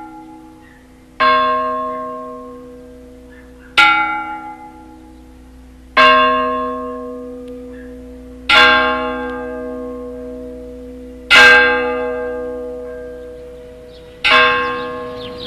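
A large church bell tolling slowly: six strikes about two and a half seconds apart, each ringing on with a deep hum and fading before the next.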